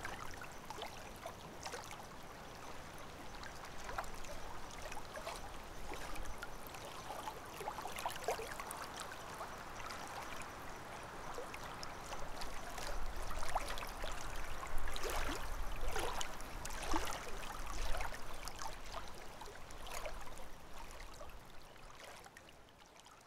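Water splashing and dripping from canoe paddle strokes, over a steady wash of water. It grows louder in the middle and fades out near the end.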